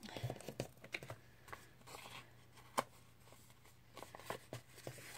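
Paper planner sticker sheets being handled: a run of light taps, rustles and clicks, with one sharper click about halfway through.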